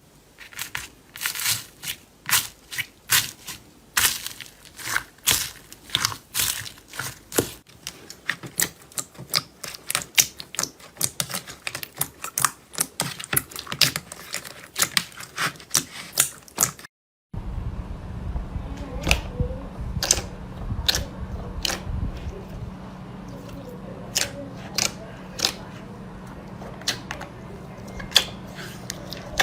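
Slime being squeezed and poked by hand: a quick, irregular run of sticky clicks and pops. After a cut about seventeen seconds in, the pops come more sparsely over a steady low hum.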